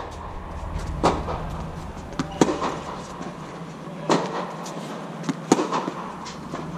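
Tennis ball being hit back and forth on an indoor hard court: several sharp pops of racquet strikes and bounces, one to two seconds apart, each with a short hall echo, over a steady low hum.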